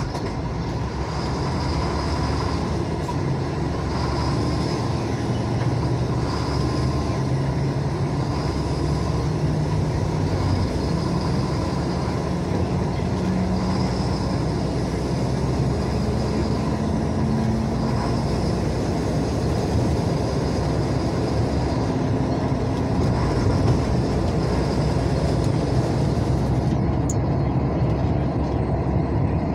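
Road and engine noise inside a moving car: a steady rumble whose engine note drifts up and down. A faint high-pitched sound repeats about every one and a half seconds.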